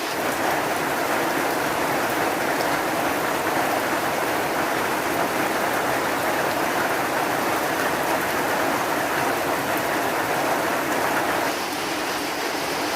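Heavy rain falling, a loud steady hiss of rain with no single drops standing out.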